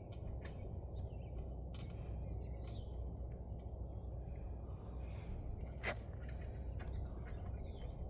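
Outdoor ambience with a steady low rumble and a few small clicks. A bird gives one rapid, high trill about four seconds in, lasting under two seconds.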